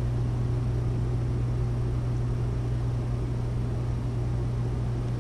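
Steady low machine hum under an even hiss.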